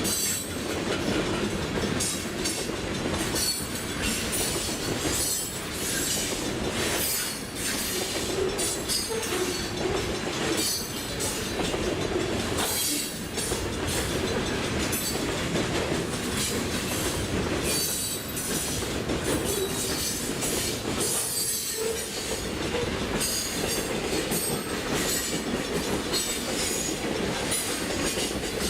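Freight train cars rolling by, their steel wheels clattering steadily over the rail joints, with brief squeals from the wheels now and then.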